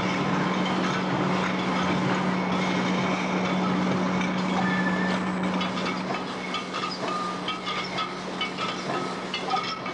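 Wine-bottling machine running, with a steady hum and a continuous clatter of glass bottles on the line. From about six seconds in, separate clinks of glass against glass stand out.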